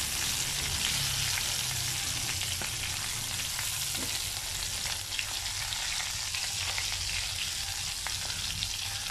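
Mackerel shallow-frying in coconut oil with curry leaves: a steady sizzle with a few faint ticks as a spatula turns the fish over in the nonstick pan.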